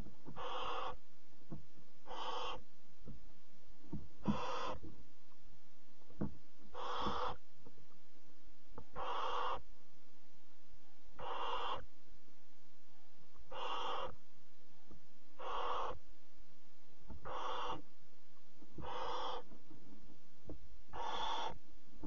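Barn owl chicks making their hissing, snore-like begging calls, a short rasping hiss about every two seconds, with faint low knocks and scuffles of movement in the wooden nest box between them.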